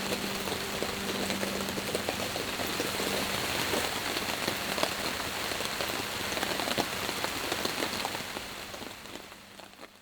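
Steady rain falling, a dense hiss full of small drop ticks, with a faint held low tone under it; it all fades out over the last two seconds.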